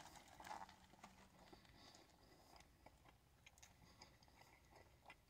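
Near silence, with faint chewing of a mouthful of burger: soft, scattered mouth clicks, a little fuller in the first half-second.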